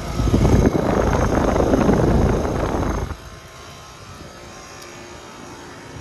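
2020 Trane XR air conditioner condenser with an LG scroll compressor running, pretty quiet; for about three seconds the fan's air rushes loudly up through the top grille, then the sound drops suddenly to a steady, quieter running hum.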